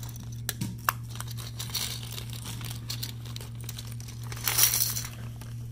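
Plastic bag crinkling and rustling with small clicks of plastic pieces being handled, as a miniature's base is taken out; the loudest rustle comes about four and a half seconds in, over a steady low hum.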